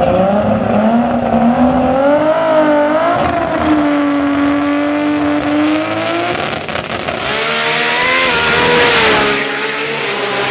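Four-wheel-drive Nissan Skyline GT-R drag car's engine held at high revs on the start line, its pitch wavering up and down. About two-thirds of the way in it launches, and the engine note climbs steeply under a loud rush of noise that peaks shortly before the end.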